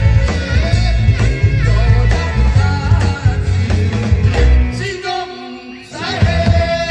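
Band playing a rock-style song with bass, drums and a bending lead melody; about five seconds in the bass and drums drop out briefly, and about a second later the band comes back in under a long held melody note.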